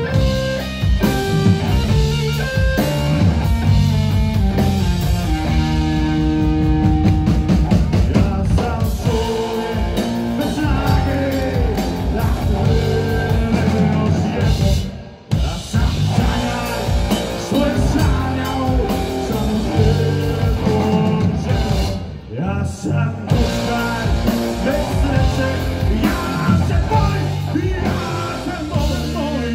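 Live rock band playing: electric guitar, bass guitar and drum kit, with a male lead vocal. The band breaks off sharply for a moment about halfway, and drops briefly again later.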